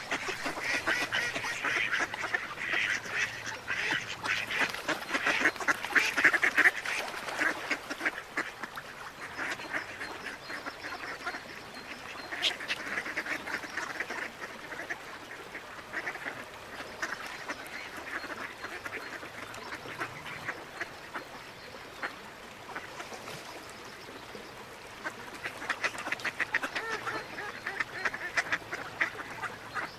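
A group of ducks quacking and chattering in rapid runs of calls, busiest in the first several seconds and again near the end, with scattered quacks between.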